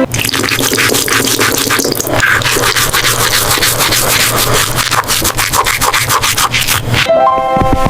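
A dense, rapid scratchy scraping noise over a steady low hum. Pitched music comes back in about seven seconds in.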